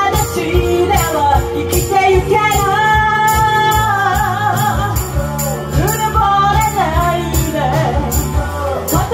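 A woman singing a Japanese rock song live into a handheld microphone over a backing track with a steady drum beat and bright cymbal or tambourine hits.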